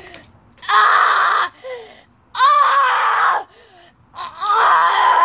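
A boy screaming: three loud, harsh, wordless yells of about a second each, with short gaps between them.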